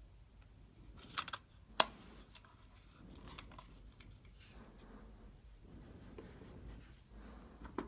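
Victor CX-51 cassette walkman being handled: a quick run of plastic clicks about a second in, then one sharp snap as its cassette lid shuts. Faint handling of the plastic case follows, with a last small click near the end.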